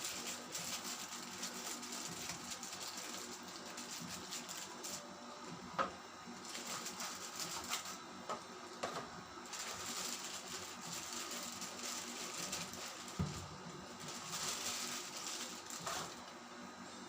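Packaging being handled and opened: continuous rustling and crinkling of plastic and cardboard, with two sharp knocks, one about six seconds in and another about thirteen seconds in.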